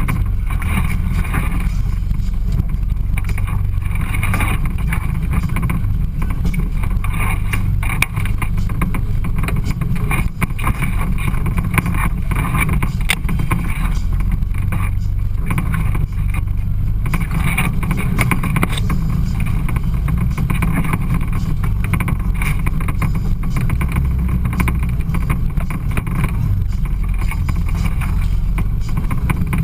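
Off-road side-by-side UTV running steadily as it drives along a rough trail, with a heavy low rumble and a few short knocks.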